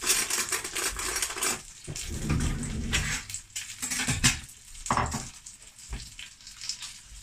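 Kitchen clatter: a china plate and a metal spoon clinking and scraping, with several sharp knocks.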